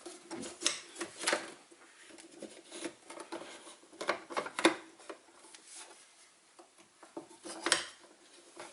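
Baratza Sette 270 coffee grinder's burr assembly being handled and lined up for refitting, giving a few sharp clicks and knocks at irregular intervals, with light rubbing between them.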